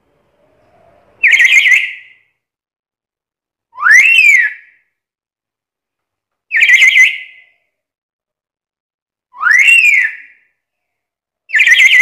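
Black-capped lory giving loud calls every two and a half to three seconds, five in all. They alternate between a rough call and a whistle that rises and falls.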